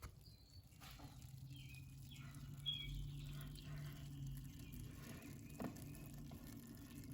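Faint fizzing and tiny pops of apple wine fermenting: the yeast is actively working and giving off gas bubbles. A soft knock comes about five and a half seconds in.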